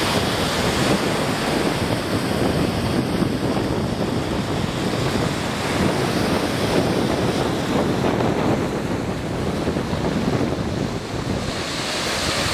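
Small waves of Lake Michigan breaking on a sandy shore in a steady rush of surf, with wind buffeting the microphone.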